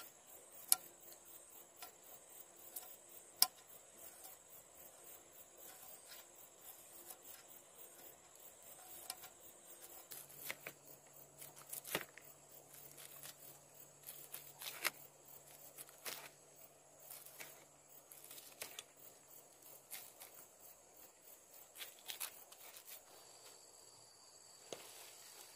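Small knife cutting shallots and chillies on a banana leaf: irregular sharp clicks and taps. Underneath is a steady, high insect chorus.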